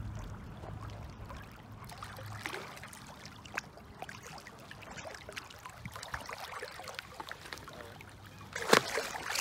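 Water lapping and small splashes as a large hooked common carp is drawn through the shallows to the bank. Near the end a louder splash comes as the fish is scooped into a landing net.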